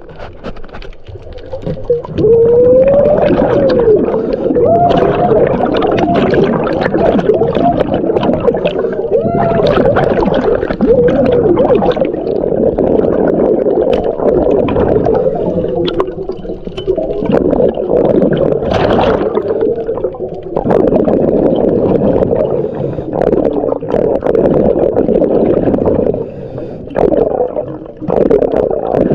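Muffled underwater noise picked up by a camera in a waterproof housing: a dense, steady rumble of water moving against the housing. In the first ten seconds a few short whine-like tones rise and fall.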